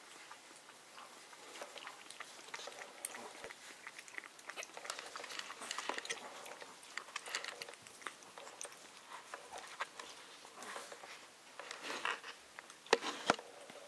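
Maltese puppy lapping water from a stainless steel bowl: a run of quick, small wet clicks, with two sharper clicks near the end.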